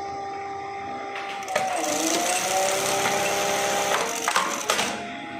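Juki LBH-781 buttonhole machine sewing a buttonhole. Under a steady motor hum, the stitching starts about a second and a half in as a loud, dense rattle whose pitch dips and then rises. It runs for about three seconds, ends in a few sharp clicks, and leaves the hum running on.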